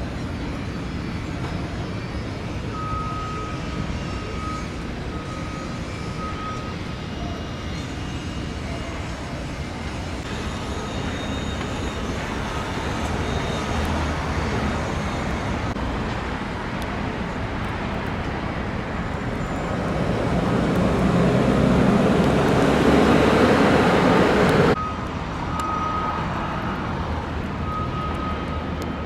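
Steady outdoor traffic noise with a faint repeating electronic beep. A louder rushing vehicle sound builds over several seconds near the end and then cuts off suddenly.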